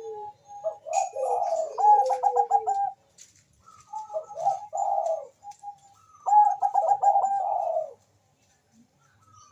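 A Bangkok-type zebra dove (perkutut) cooing: three song phrases, each a quick run of short notes with a lower gliding note, a second or two apart, then a pause near the end.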